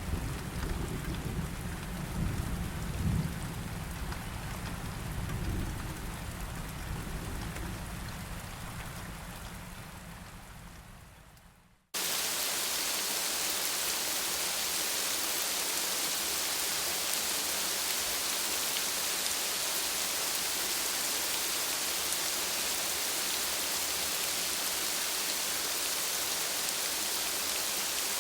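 Rain falling with low rumbles of thunder, fading out to silence about twelve seconds in. Then a steady, hissing downpour starts abruptly and runs on evenly, without thunder.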